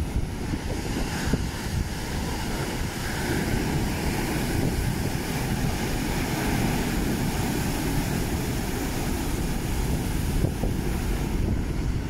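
Sea waves crashing on a rocky shore, a steady roar of surf, with wind buffeting the microphone.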